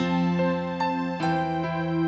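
Roland XP-60 keyboard played in a slow instrumental passage: held chords over a sustained bass, with a melody note struck about every half second and the chord changing a little past a second in.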